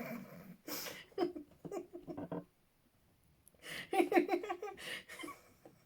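A person laughing in two bouts: a string of short breathy 'ha' pulses, a pause of about a second, then a second, louder bout.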